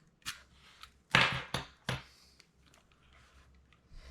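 A few sharp clicks and a short metallic clatter, the loudest just after a second in: door-lock hardware being handled and set down.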